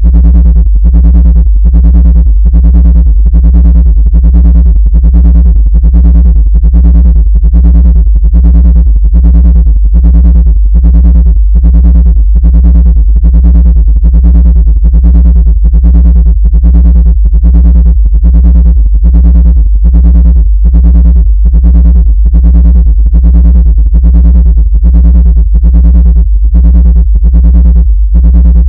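Loud, deep synthesized bass tone with a few overtones above it, pulsing about twice a second: an electronic 'frequency' sound offered as a way to drive ants out of a laptop.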